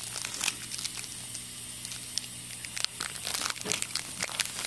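Foil wrapper of a Topps Fire trading-card pack being torn open and crinkled by hand: irregular crackles and rips that grow busier about three seconds in.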